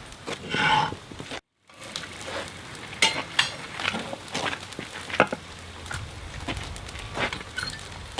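Sizzling and crackling of hot steel and the forge fire, with scattered light clicks and a few sharper knocks.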